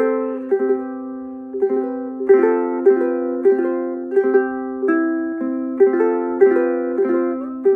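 Spruce-top Forest Ukuleles FUZZ concert ukulele being fingerpicked, a new plucked note or pair of notes about every half second, each left ringing as the next comes in.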